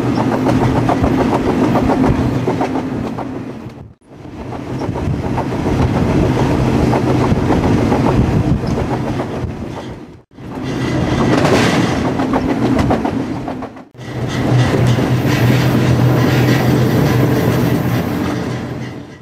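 Freight train rolling on the rails, wheels clacking over the rail joints with a steady low rumble. The sound comes in four short clips that fade out and straight back in about 4, 10 and 14 seconds in.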